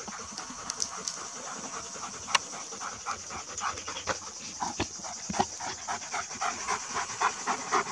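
A large farm dog panting hard and fast, about three breaths a second, growing louder as it comes closer. It is worn out from chasing through the forest.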